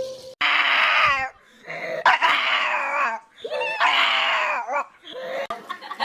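A dog giving three long, high-pitched, wavering cries in quick succession.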